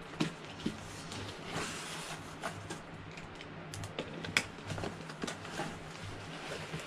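A small cardboard box being handled while its packing tape is picked at and peeled: scattered scratches, taps and clicks of fingers, tape and cardboard, the sharpest about a quarter second in and a little past four seconds.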